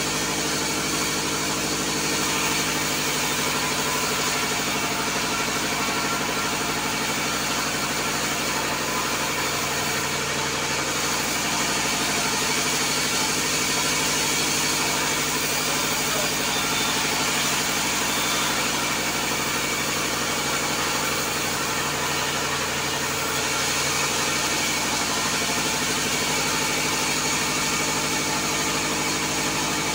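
Vertical bandsaw mill running, its blade sawing through a timber slab pushed along the table by hand. The saw's drive makes a steady, even drone underneath.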